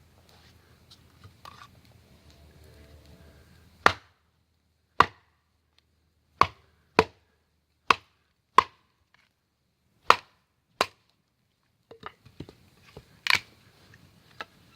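Wood being chopped: a run of about eight sharp, separate strikes roughly one a second, then a few quicker, fainter knocks with one loud strike near the end.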